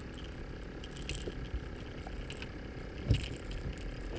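Faint clicks, rattles and scrapes of hands handling a live bullhead bait and fishing tackle, with one short dull thump about three seconds in.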